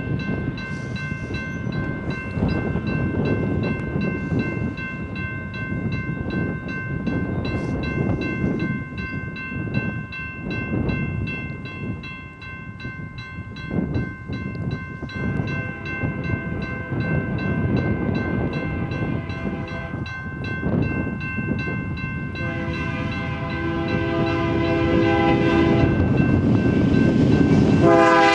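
Diesel freight train approaching with a steady rumble that grows louder, and a locomotive air horn sounding: faint around halfway, then a loud held chord for a few seconds near the end and a fresh blast just as it finishes.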